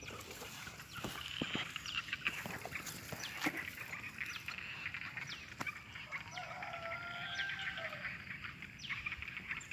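Faint bird calls, a run of short high downward chirps in the second half with a drawn-out wavering lower call in among them, over scattered light clicks and knocks.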